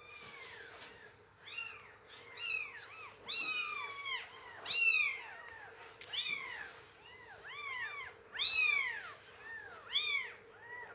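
Very young kittens, their eyes just opening, mewing over and over: about twenty short, high, thin cries that rise and fall in pitch, sometimes overlapping.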